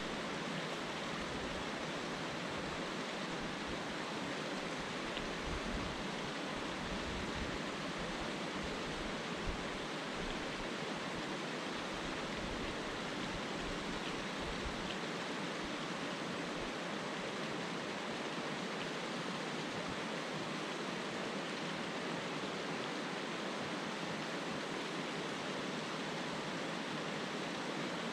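Rushing water of a high, fast river, a steady even hiss, with one faint click about a third of the way through.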